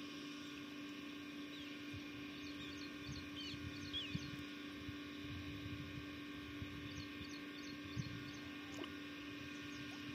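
A steady hum made of several even tones, with faint short high chirps scattered through it and a few soft low thuds.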